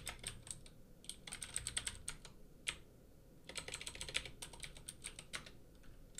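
Computer keyboard typing in quick runs of keystrokes separated by short pauses.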